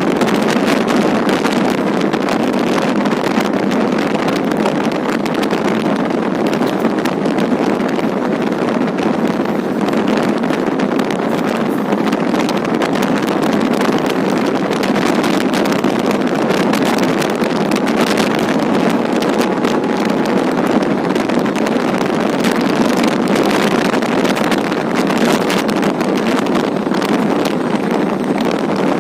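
Steady rush of wind and running noise from a fast-moving train, heard from on board, with wind buffeting the microphone.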